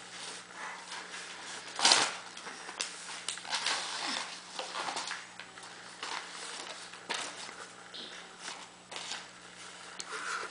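A sheet of paper rustling and crinkling as a small child handles it, in short irregular bursts, the loudest about two seconds in, over a faint steady low hum.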